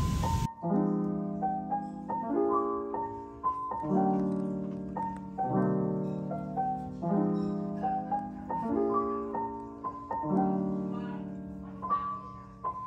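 Solo piano music: a gentle melody over low chords struck about every second and a half. A brief hiss cuts off about half a second in.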